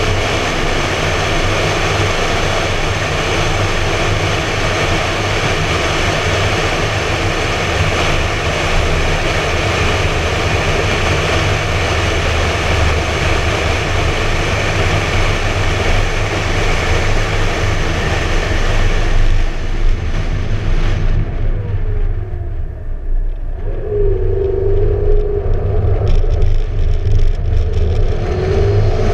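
Wind rushing over a GoPro mounted outside an open-top McLaren MP4-12C Spider at road speed, over the low rumble of its twin-turbo V8. About two-thirds of the way in the wind noise falls off as the car slows, and a clearer engine tone comes through near the end.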